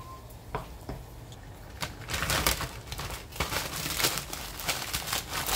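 A plastic zip-lock freezer bag crinkling as it is handled, a dense crackle starting about two seconds in. It follows a few light clicks in the first two seconds.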